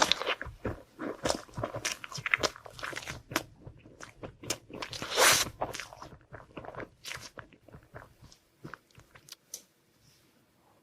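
Close-up chewing of a sweet, with crisp crunching bites that come thick at first, thin out, and die away about nine to ten seconds in.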